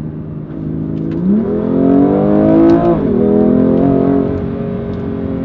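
BMW M2 Competition's 3.0-litre twin-turbo straight-six accelerating, heard from inside the cabin. The revs climb from about a second in, drop sharply on a quick dual-clutch upshift near three seconds, then rise a little more and level off.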